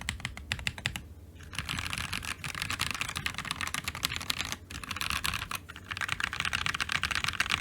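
Typing on a mechanical keyboard with Akko POM Brown tactile switches (Akko 5075S board, Red Fuji keycaps): rapid keystrokes in fast runs, with brief pauses about a second in, near the middle, and a little after.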